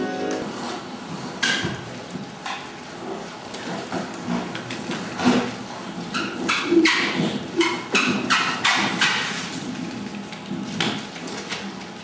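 Irregular knocks and taps mixed with rustling, thickest in the middle of the stretch, loudest about seven seconds in.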